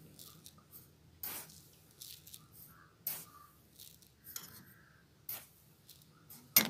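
Granulated sugar being spooned into a ceramic mug: a few soft, brief rustles of falling sugar, and a sharp tap near the end, the loudest sound.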